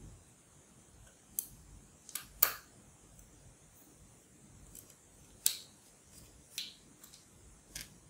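Sharp clicks and taps of a Samsung 860 EVO 2.5-inch SSD being fitted into a laptop's metal hard-drive caddy. There are about six, spaced irregularly, the loudest about two and a half seconds in and again at five and a half.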